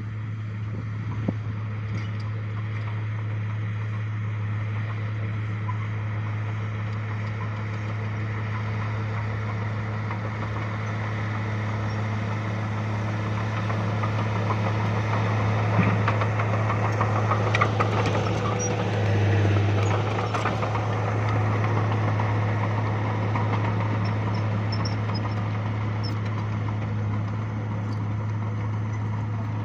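Bulldozer's diesel engine running steadily, growing louder for several seconds around the middle, with a few sharp metallic knocks at the same time.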